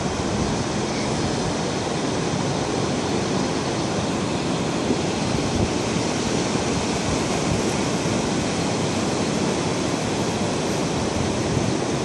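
Steady wash of ocean surf mixed with wind buffeting the microphone, an even noise with no separate events.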